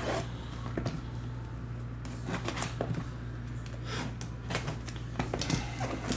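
Hands handling sealed trading-card boxes: scattered light taps, clicks and scrapes of cardboard and plastic wrap, over a steady low electrical hum.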